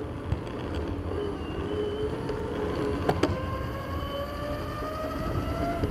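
Dual belt-driven brushless motors of a DIY electric skateboard, run in FOC mode by dual VESCs, whining under throttle; the whine climbs steadily in pitch from about three seconds in as the board picks up speed. Under it is a low rumble from the urethane wheels rolling on concrete, and a pair of sharp clicks about three seconds in.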